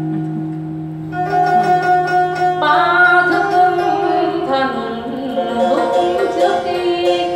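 Traditional Vietnamese water puppet theatre music: a held ringing note that fades over the first second, then plucked zither-like strings, joined a couple of seconds later by a wavering, sliding melodic line.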